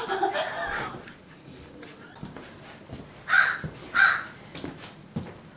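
A bird giving two short, harsh, rasping calls about half a second apart.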